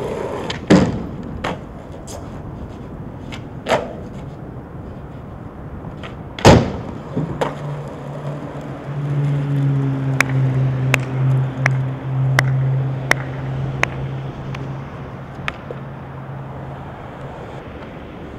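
Skateboard deck slapping and clacking on pavement in trick attempts, with two loud clacks about a second in and about six and a half seconds in and lighter knocks between. After that a steady low hum runs for several seconds with a faint click roughly every 0.7 seconds.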